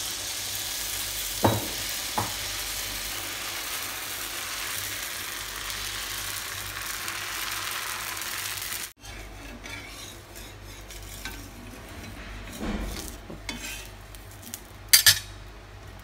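Dosa batter sizzling on a hot cast-iron pan as it is poured and spread in circles with a steel ladle, with two light knocks of the ladle about a second and two seconds in. The sizzle cuts off suddenly about nine seconds in, leaving a quieter background with a few scattered clinks and one sharp clink near the end.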